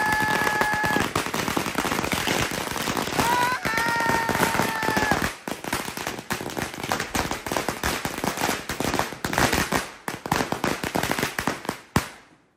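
A long string of firecrackers (a 2000-cracker ladi) going off in rapid succession, a dense crackle of bangs that dips briefly twice and stops abruptly near the end. A steady high whistling tone sounds over the bangs in the first second and again about four seconds in.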